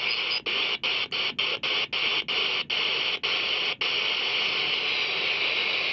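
Band hiss from a Retevis RA-79 handheld radio's speaker as it is tuned across the 11-metre CB band in sideband mode. The hiss cuts out for an instant about ten times in the first four seconds, each gap a tuning step, the gaps coming further apart, then runs on unbroken.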